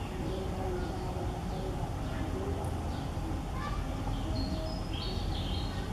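Outdoor background: a steady low rumble with faint high chirping calls, most of them about four to five seconds in.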